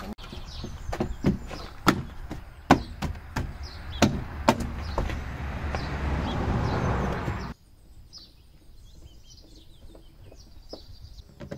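Plastic door trim panel of a pickup's rear door being pushed and tapped back onto its clips: a run of sharp knocks and clicks over a steady low background noise. The background stops abruptly about seven and a half seconds in, leaving a few light clicks and faint bird chirps.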